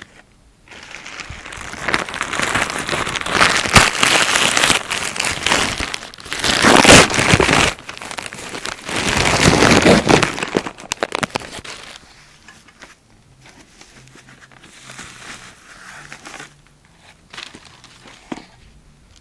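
Plastic packaging crinkling and rustling as it is handled, loud and continuous for about the first twelve seconds, then a few softer rustles.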